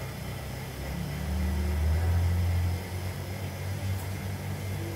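Low, steady machine rumble that swells about a second in and eases back near three seconds.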